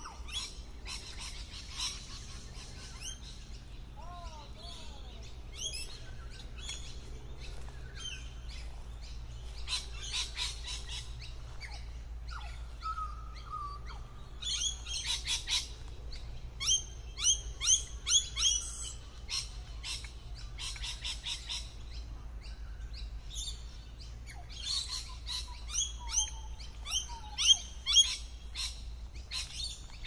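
Lorikeets calling in bursts of rapid, shrill, overlapping chirps, several birds at once. The calls are loudest from about 15 to 19 seconds in and again around 27 seconds.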